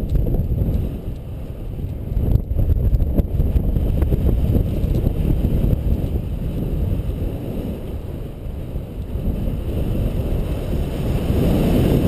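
Airflow buffeting the microphone of a camera mounted on a paraglider pilot in flight: a loud, uneven low rumble of wind noise that swells and eases.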